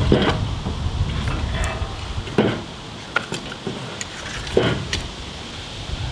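A handful of separate knocks and clanks from a steel winch cable being pulled out over a wooden trailer deck and a wooden block being shifted on the boards.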